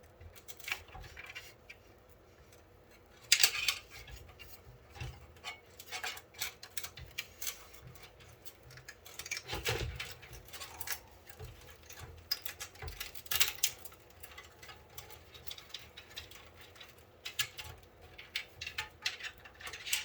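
Hands working inside a PC case: scattered plastic clicks, taps and rustling as fan cables are unhooked and a front fan is freed, with a couple of sharper clacks about three and a half seconds in and near the middle.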